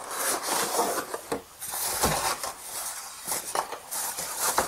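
Rustling and crinkling of a cardboard box, its paper insert and a plastic bag as a set-top box is unpacked by hand, with several light knocks.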